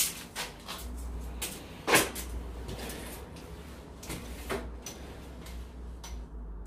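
Clicks and knocks of a steel tape measure being extended up a drywall wall and pressed against it, with two sharper knocks at the start and about two seconds in, over a low rumble.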